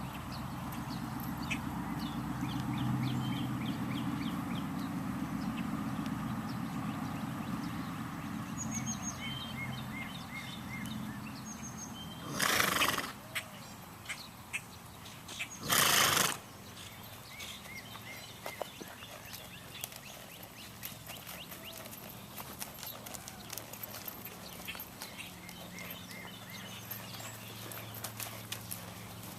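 A horse being ridden: scattered hoof steps and small clicks, with two short, loud noisy blasts of breath about twelve and sixteen seconds in. A low steady hum runs under the first ten seconds or so.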